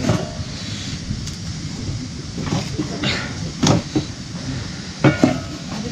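A handful of knocks and scrapes as an iron frying pan is shifted on a wood-fired stove and firewood is pushed into the fire, ending in two sharp knocks with a short metallic ring. A steady low rush runs underneath.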